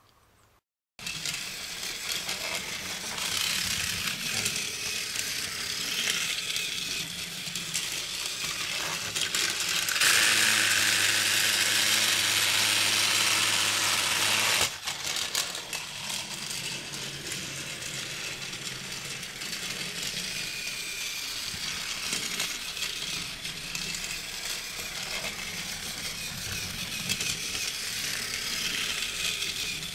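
Battery-powered motorized Thomas TrackMaster toy engine running along plastic track, the steady whir and rattle of its small motor and gears. It starts about a second in and grows clearly louder for about five seconds in the middle before settling back.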